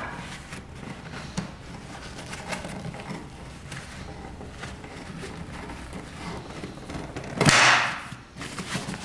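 Cloth vacuum filter rustling and scraping inside a metal canister as it is worked into its groove. Near the end, a sharp snap and a brief loud rustle as the filter's spring metal band springs into the groove and the filter seats.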